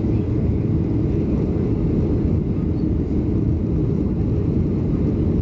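Steady low rumble of a Boeing 737-900 heard inside the passenger cabin: engine and airflow noise, even and unbroken.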